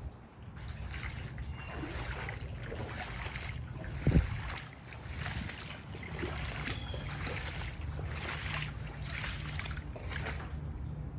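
Footsteps splashing through shallow, muddy floodwater, in a steady run of steps, with one louder low thump about four seconds in.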